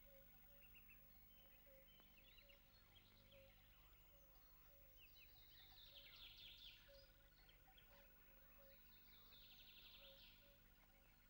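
Faint birdsong: scattered high chirps, with two louder rapid trills about halfway through and near the end. Under them a short low note repeats about twice a second.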